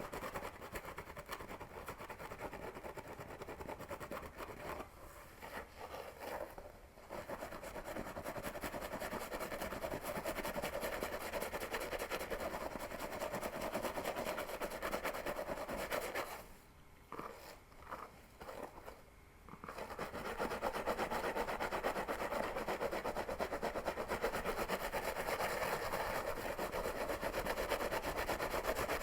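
Close-miked fingernails scratching a scalp and fingers tugging through hair: a dense, continuous scratching and rustling that eases off twice, briefly about five seconds in and for about three seconds just past the middle, and is louder near the end.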